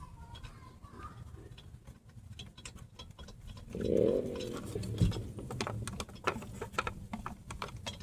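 Hand tools working on a car's wheel hub assembly: irregular metallic clicks and taps, a short grunt-like sound about four seconds in, and a single knock just after.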